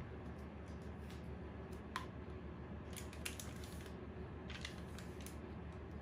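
Faint soft dabbing and scraping of a silicone pastry brush in a small bowl of beaten egg and over a ball of raw bread dough, in two short spells, with one light clink about two seconds in and a steady low hum underneath.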